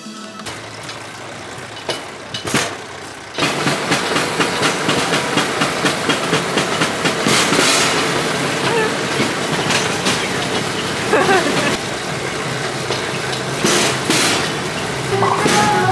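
Pedal rail bike rolling along steel railway track: a loud, steady rattling rumble of wheels and frame from about three seconds in, with regular clacks a few times a second and a few sharper jolts.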